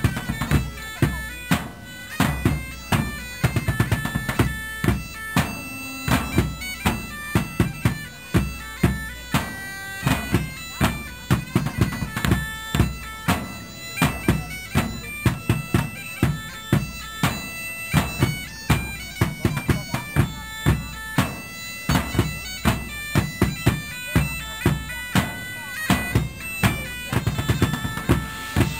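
Live folk music from a band: a droning reed-pipe melody over a steady drum beat.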